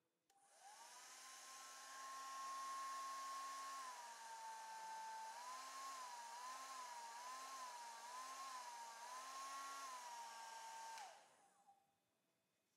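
Panasonic EH5573 hair dryer switched on, running with a rush of air and a motor whine. The whine dips a little about four seconds in, then wavers up and down several times. The dryer is switched off shortly before the end, its whine sliding down as it stops.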